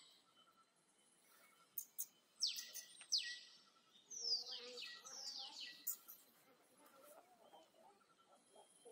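Baby monkey crying in four shrill squeals, each sliding sharply down in pitch, in two pairs starting about two and a half and four seconds in, with faint clicks around them.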